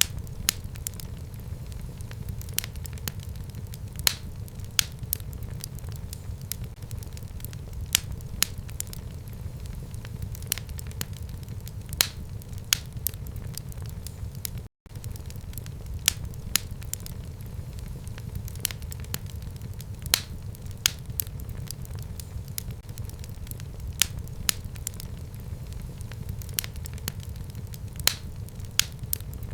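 Wood fire burning in a fireplace: a steady low rumble of flames with frequent sharp crackles and pops from the burning wood, broken once by a split-second gap of silence about halfway through.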